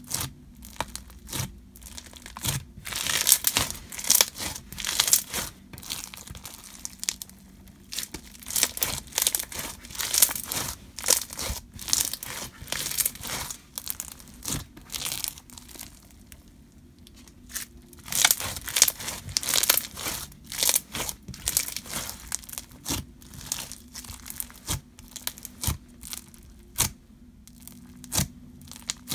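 White-glue slushy floam slime full of hard plastic slushy beads, kneaded and pressed by hand: bursts of crackling crunches and small bubble pops, easing off for a few seconds around the middle.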